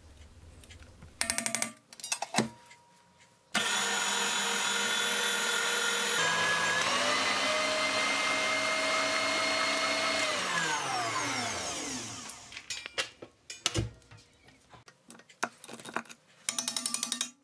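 Electric mixer beating a thick cheesecake cream in a steel bowl: the motor starts suddenly, steps up in speed a couple of seconds later, runs steady, then winds down, its pitch falling as it stops. Short bursts of rapid rattling shortly after the start and just before the end.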